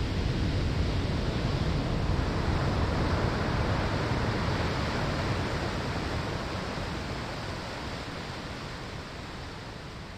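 Ocean surf washing onto a sandy shore: a wave's rushing hiss and rumble that slowly fades away over the second half.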